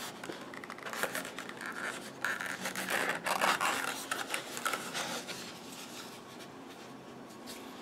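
Small cardboard box being opened by hand: the lid scrapes and rubs against the base as it is worked off, with light clicks of the cardboard. The scraping is busiest in the first few seconds and dies down near the end.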